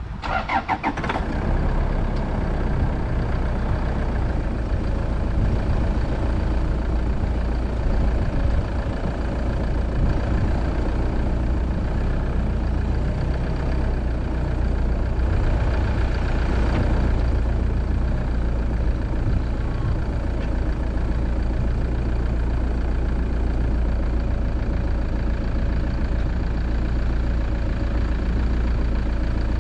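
Vehicle engine starting, with a short rapid flurry about half a second in, then running steadily at idle with a low, even hum.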